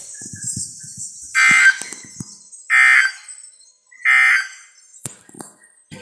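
Three short, buzzy digital data bursts from a NOAA Weather Radio broadcast, about a second and a third apart: the SAME end-of-message code that closes an alert.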